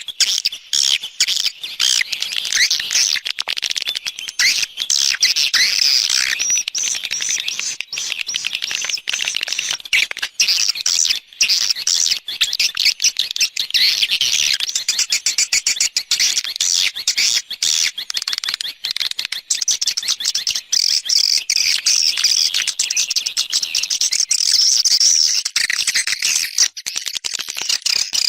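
Recorded swiftlet calls: a dense, high twittering chatter with many brief gaps, the 'external' lure sound played outside a swiftlet house to draw in nesting swiftlets.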